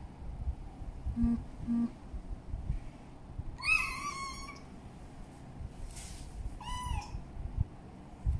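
Golden British shorthair kitten meowing twice: a longer high-pitched meow a few seconds in, then a shorter one about three seconds later.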